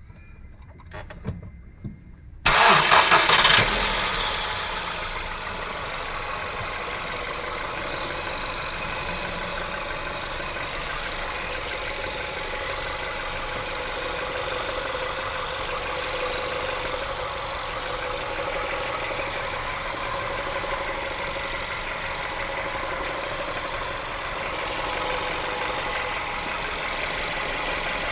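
A few light clicks, then the VW Caddy's 1.2-litre engine starts about two and a half seconds in, flares briefly and settles to a steady idle. Under the idle runs a steady whirring from the gearbox area, the fault being checked.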